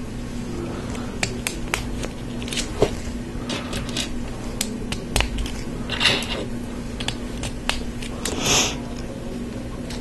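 Plastic LEGO Technic pieces clicking and tapping as they are handled and pressed together, in many small separate clicks, with two short rustles about six and eight and a half seconds in. A faint steady hum runs underneath.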